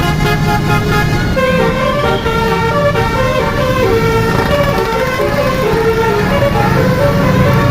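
Basuri telolet bus horns playing stepped, multi-note tunes, several overlapping, over a steady low engine rumble.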